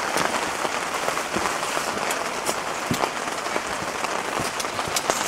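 Sea water washing against a rocky shore with a steady hiss, dotted with scattered sharp clicks.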